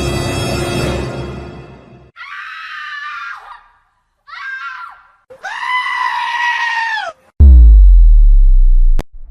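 Music fades out, then a goat screams three times, the third call the longest. A very loud deep bass boom with a falling sweep follows and is cut off by a sharp click.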